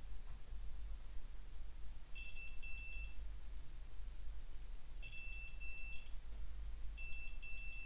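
Multimeter continuity beeper sounding in three pairs of short high beeps a couple of seconds apart as the probes are touched across copper traces on the ECU circuit board. Each beep means the trace still conducts. A steady low hum runs underneath.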